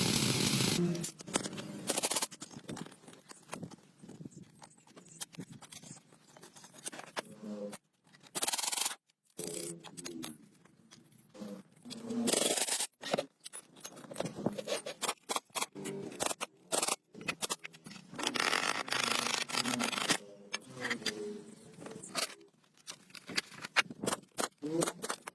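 Intermittent scraping and rubbing, hand work in short strokes with pauses between them. A loud, steady noise runs at the start and cuts off about a second in.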